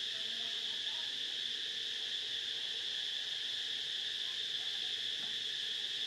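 Steady, shrill insect chorus, an even high drone that does not change.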